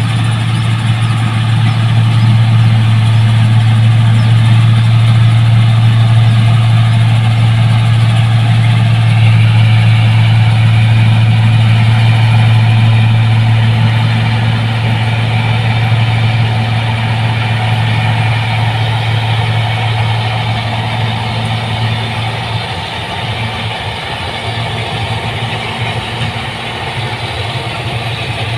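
New Holland 1545 rice combine harvester's diesel engine running steadily, a deep continuous hum that eases off slightly in the second half.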